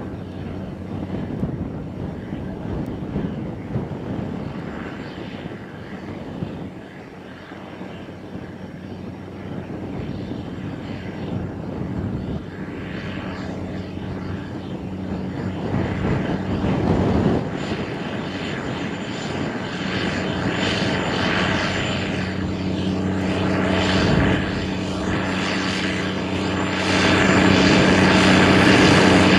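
Case IH 535 Quadtrac tractor's diesel engine running steadily under load while pulling a 40 ft Great Plains Turbo Till through the ground. The engine drone grows louder as the tractor comes closer, with a further rise near the end.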